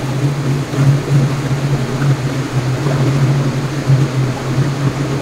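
Steady low drone of a ship's machinery, a constant hum with a faint even rush over it.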